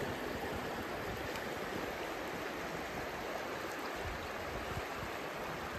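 Shallow river running over a rocky riffle: a steady rush of flowing water.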